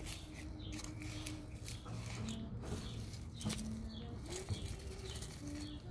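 Rustling of carrot foliage and soil as a hand grips and pulls at the carrot tops to draw carrots out of the ground, in a run of short scratchy rustles.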